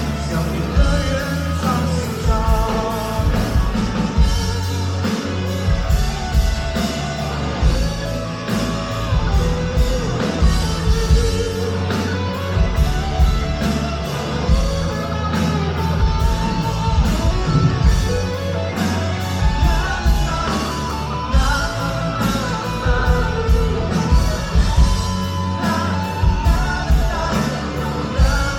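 Live rock band playing: a drum kit keeps a steady beat under electric guitars and bass, with singing over it, in a large hall.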